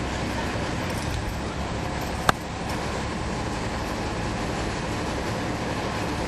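Cummins ISL9 inline-six diesel of a NABI 40-foot transit bus running, heard from on board as a steady drone mixed with road noise. One sharp click a little over two seconds in.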